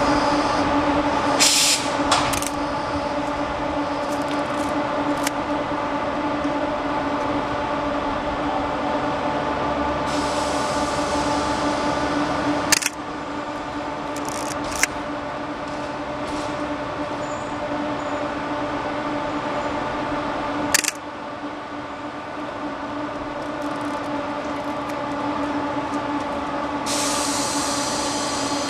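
Stationary JNR Class EF64 electric locomotive humming steadily while it stands with its pantograph raised. Short hisses of air and a few sharp clicks break in, and a steady hiss starts near the end.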